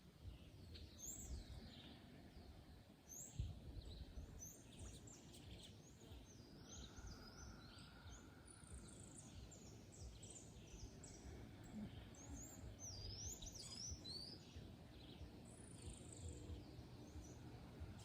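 Faint birdsong: many short, high chirps and twitters from several birds, scattered through a quiet forest background.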